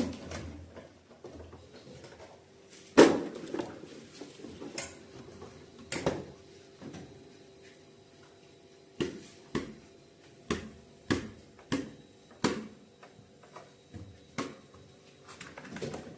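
Knocks and clunks of household items being handled and set down, a loud one about three seconds in and a quick run of them about two-thirds of a second apart from about nine seconds in, over a faint steady hum.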